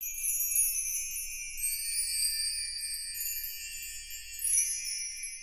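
Twinkling chime sound effect: many high, bell-like tinkles layered into a shimmering wash, starting suddenly out of silence.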